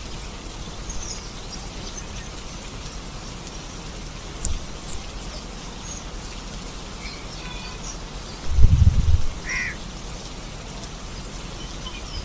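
Steady rain falling, with a few short bird calls and a brief low rumble a little past halfway through.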